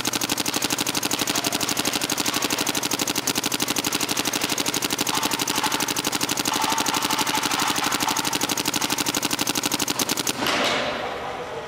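Planet Eclipse GSL electronic paintball marker firing continuously at a capped rate of about 12 shots a second, emptying a pod of paint. The shots stop about ten seconds in.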